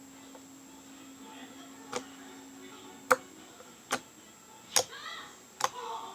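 Glue-and-borax slime being kneaded by hand, giving sharp wet pops about once a second.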